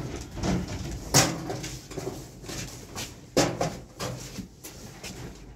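Sheet-metal stove body being handled and set onto its base, giving a run of metal clanks and knocks; the loudest come about a second in and again about three and a half seconds in.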